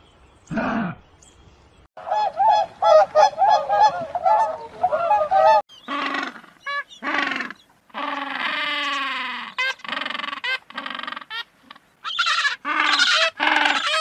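A quick run of short, high chattering calls, then from about six seconds in African penguins braying: a string of short pitched notes with one long drawn-out falling note, louder again near the end.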